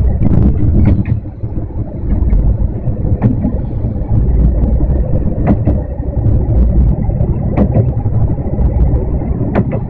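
Diesel railcar running along the track: a steady low rumble from the engine and wheels, with a sharp click from the wheels every couple of seconds.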